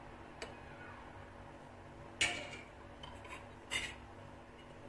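Metal spoon clinking against a ceramic soup bowl while scooping soup: a faint tick, then a sharp clink about two seconds in and a few lighter clinks after it.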